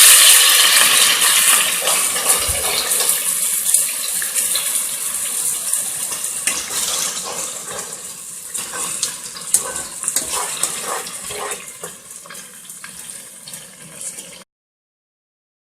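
Onion paste sizzling in hot oil in a pan: a loud, even hiss with scattered crackles and pops. It fades steadily and cuts off suddenly near the end.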